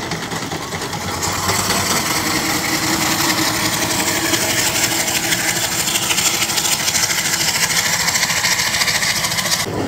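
Small steam traction engine driving off: a rapid, even beat from the engine with a steady hiss of steam over it.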